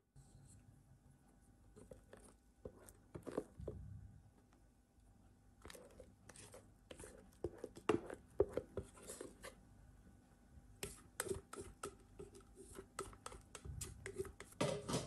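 Scattered taps, knocks and scrapes of a spatula and stainless steel bowls as stiff meringue is scooped out of the mixing bowl onto the almond flour and cocoa mixture, the hand mixer already switched off.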